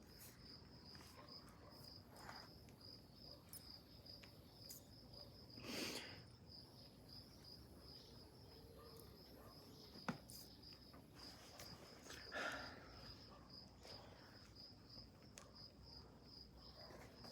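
Near silence with a cricket trilling steadily at a high pitch, and a few soft breathy puffs, about six and twelve seconds in, as a new bicycle inner tube is blown up by mouth.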